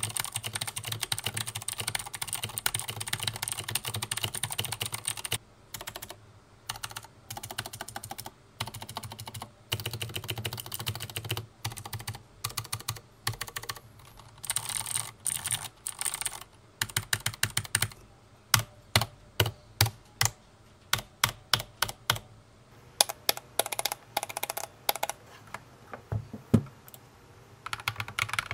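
Redragon Kumara mechanical keyboard with stock clicky Outemu Blue switches being typed on: a fast, steady run of keystrokes for about five seconds, then short runs and single key presses. Near the end the modded Kumara, with lubed Akko Matcha Green switches and foam and tape mods, takes over: typing without the high click.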